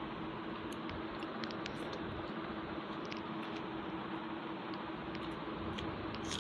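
Fingers mixing rice and fish curry on a steel plate and chewing: soft squishing with small scattered clicks, over a steady background hum and hiss.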